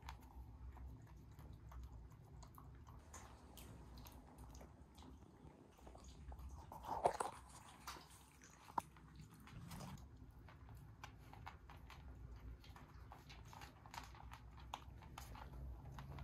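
Toy poodle crunching dry dog food from a stainless steel bowl: many small crunches and clicks. One brief louder sound comes about seven seconds in.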